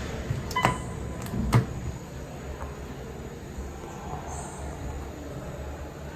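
Otis hydraulic scenic elevator running with a steady low rumble, with two sharp knocks about a second apart near the start.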